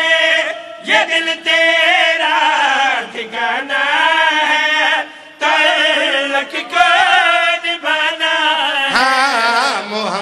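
Men's voices chanting a devotional qasida, drawing out long wavering notes, with a short break about five seconds in.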